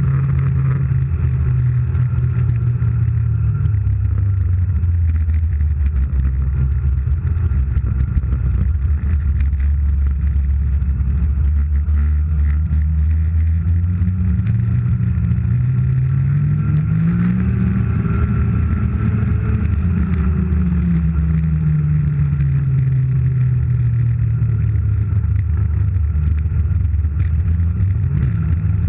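Snowmobile engine running steadily while towing a sled, climbing in pitch about halfway through as it speeds up, then easing back down and settling again.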